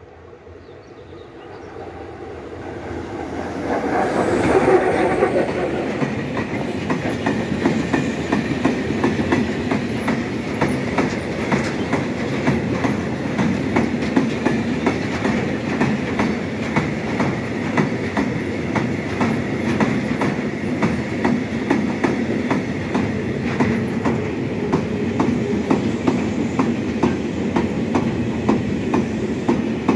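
A freight train hauled by a ČD Cargo Škoda class 123 electric locomotive approaches and passes, growing louder to a peak about four seconds in as the locomotive goes by. The long train of loaded car-carrier wagons then rolls past with steady wheel noise and regular clickety-clack of wheels over the rail joints.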